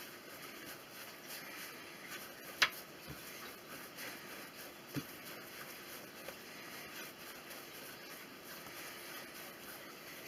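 Hands rolling Viennese baguette dough back and forth on a floured worktop, a faint soft rubbing. A single sharp click about two and a half seconds in, and a softer knock near five seconds.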